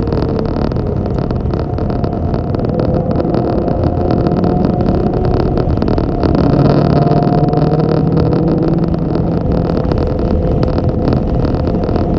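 An engine running steadily under dense rumbling noise, its pitch drifting slightly up and down.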